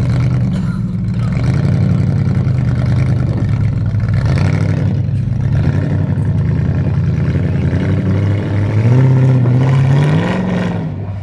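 Off-road vehicle engine running hard under load, its pitch wavering, then revving up from about nine seconds in to a peak before falling away near the end.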